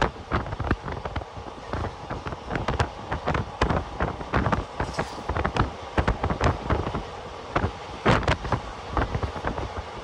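Passenger train running at speed, with wind buffeting the microphone and many irregular rattles and knocks from the coach and wheels.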